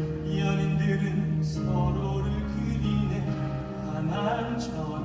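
Live stage musical: a singer holding long notes over instrumental accompaniment, heard from the audience.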